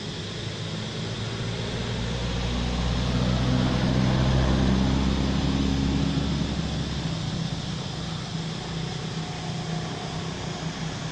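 A motor engine's low hum that grows louder a couple of seconds in and fades away again, over a steady background rush.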